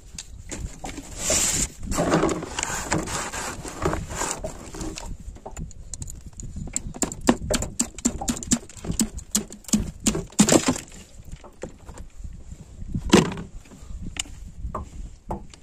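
A few seconds of scraping and rustling, then a run of sharp knocks and clatter of hard objects. There is a loud knock near the end.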